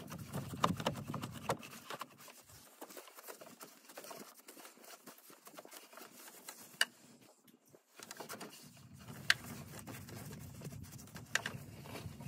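A cloth towel rubbing and wiping over engine-bay wiring, hoses and plastic, in two stretches of scrubbing with scattered clicks and taps as the hand knocks against the parts.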